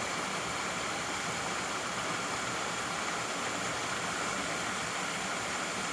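Waterfall, a steady even rush of falling water.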